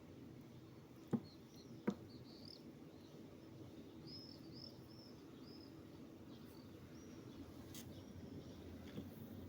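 Small birds chirping outside in quick repeated short calls over a steady low street rumble. Two sharp clicks, about a second and two seconds in, are the loudest sounds.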